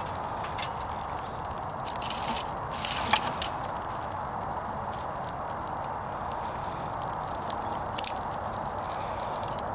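Wood fire burning in a small portable wood-burning camp stove: a steady rushing with scattered sharp crackles and snaps from the burning wood, a few louder ones about half a second, three seconds and eight seconds in.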